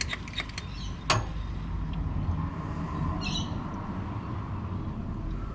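Hand-pumped vacuum brake bleeder being worked, its handle clicking rapidly and stopping within the first second, then one sharp click. A low steady rumble fills the rest, with a short high chirp near the middle.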